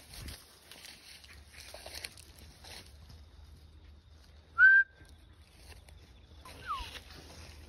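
Two short whistles, almost certainly a handler whistling to a working border collie pup. The first, about halfway through, is loud, rising briefly and then holding one note. The second, about two seconds later, is fainter and falls in pitch.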